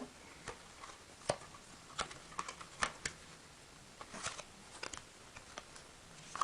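Handling of a small product box and its contents: scattered light clicks, taps and brief rustles of cardboard and plastic packaging as the items inside are taken out.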